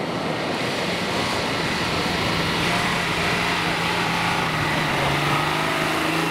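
Nissan Patrol off-roader's engine running under load as it drives through snow. A steady engine note comes through about two seconds in and drops slightly in pitch near the end.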